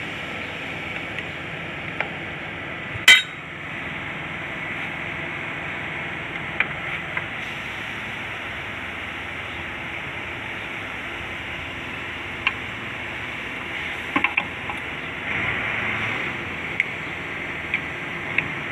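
Metal clinks and knocks of a tractor drive-shaft universal joint being handled and slid onto a splined shaft: one sharp, loud clank about three seconds in, then lighter clicks scattered through the rest, over a steady background hiss.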